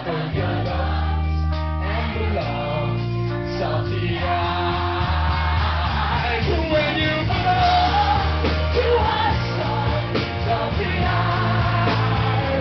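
Live rock band playing, a male lead singer over electric guitars.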